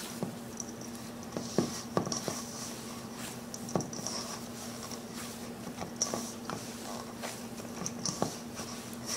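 Hands kneading a stiff flour dough in a stainless steel bowl: irregular soft knocks and squishes as the dough is pressed and pushed against the bowl. A steady low hum runs underneath.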